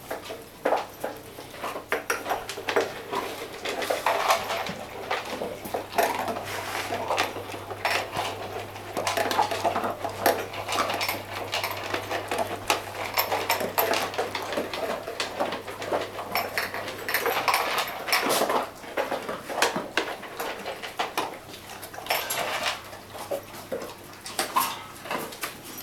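A dog eating greedily from a food bowl: a steady run of irregular clinks and clatters from the bowl, mixed with chewing and licking.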